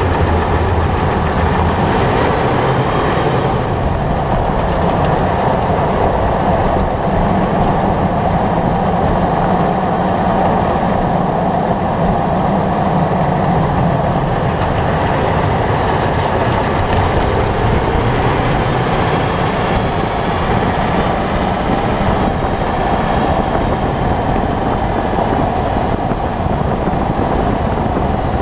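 Steady rushing road and tyre noise from a 2011 Toyota 4Runner driving along, heard up close under the front suspension beside the front tyre.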